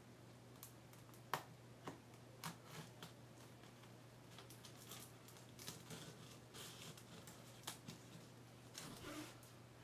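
Faint scattered clicks and rustles of packaging being handled during an unboxing, about a dozen small sounds spread irregularly, over a low steady hum.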